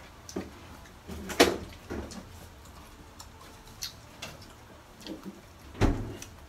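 Scattered light knocks and taps from eating by hand at a table, with a sharp knock about a second and a half in and a duller thump near the end.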